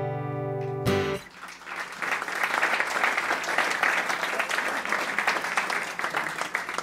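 The last chord on an acoustic guitar rings and is cut off about a second in, then an audience claps and applauds. The applause thins out near the end.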